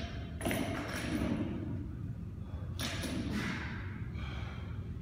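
Two thuds with a metallic clatter, one at the start and one about three seconds in, from loaded barbells and their plates, over a steady low gym rumble.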